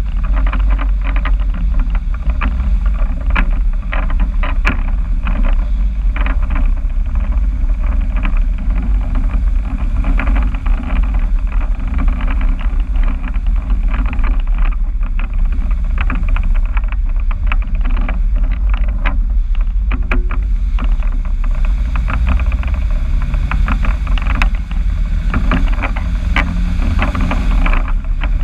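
A car's engine running through a newly fitted exhaust, a steady deep drone with a rough, crackly noise above it.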